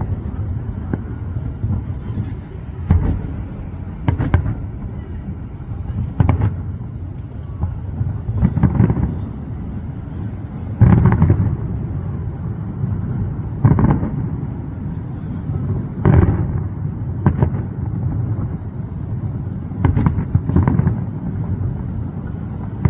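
Distant aerial firework shells bursting, a dull boom every two to three seconds, sometimes two close together, over a steady low rumble.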